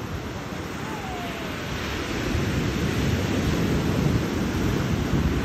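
Ocean surf breaking and washing up the beach, with wind buffeting the microphone; the rush of the surf swells about two seconds in.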